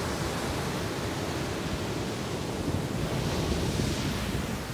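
Ocean surf breaking on a sandy beach: a steady wash of waves, with the hiss swelling as a wave breaks and rushes up the sand about three seconds in.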